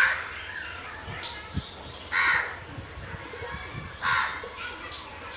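A crow cawing three times, about two seconds apart, each caw short and loud.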